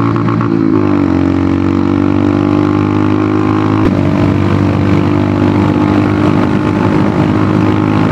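Royal Enfield Hunter 350's 349 cc single-cylinder air-cooled engine, running through an aftermarket megaphone exhaust while the bike cruises. The engine note dips slightly in pitch about a second in and is briefly broken by a click about four seconds in, then runs on steadily.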